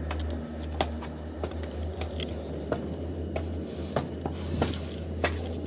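Footsteps climbing concrete stairs, one step about every two-thirds of a second, over a steady low hum.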